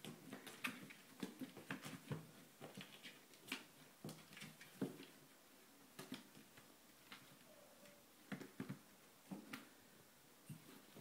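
Kittens' paws patting and scratching at a door and the floor beneath it: soft, irregular taps and scrapes, some in quick flurries.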